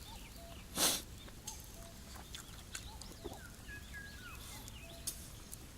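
Small birds chirping, with scattered short whistled calls and glides, and a brief loud rush of noise about a second in.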